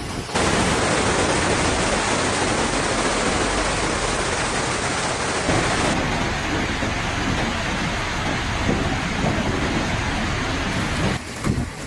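Floodwater rushing and churning in waves: a loud, steady, dense rush of water that starts abruptly just after the start and changes character about six seconds in.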